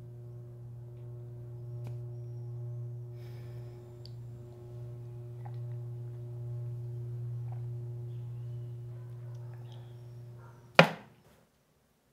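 A steady low droning hum with a held higher tone under it, with a few faint clicks. Near the end a single loud, sharp hit lands, and everything cuts off abruptly into silence.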